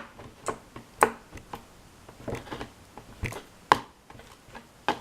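A fork knocking and scraping against a container while stirring glue and laundry detergent into slime: a handful of irregular sharp clicks.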